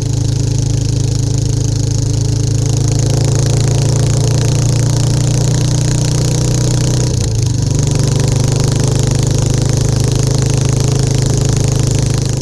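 Royal Enfield Classic 350's single-cylinder engine and exhaust running steadily under way. The exhaust note briefly drops in pitch and level about seven seconds in, then picks up again.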